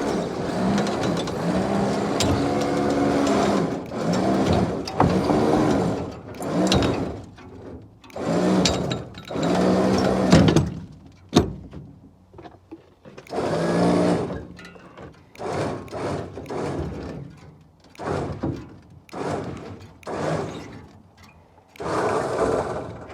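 Trailer winch motor running in repeated bursts: one long pull first, then shorter and shorter jogs toward the end. Its whine rises and falls in pitch as it strains against the load, dragging the rear axle of a 1978 Ford dually, one wheel seized, onto a trailer.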